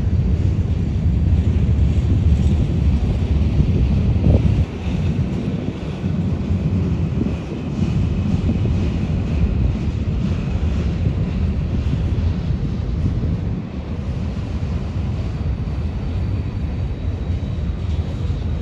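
Freight cars rolling past on a curve: a steady low rumble of steel wheels on rail, with wind buffeting the microphone and a faint high squeal now and then.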